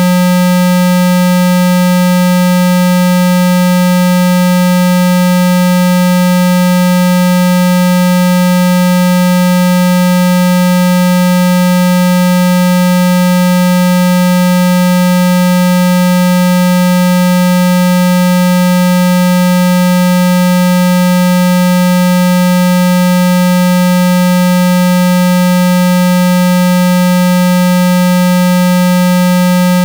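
A synthesized 195 Hz water-eject tone: one loud, unchanging low hum with fainter higher overtones. It is played at full volume so the speaker vibrates water droplets out of a wet phone speaker grille.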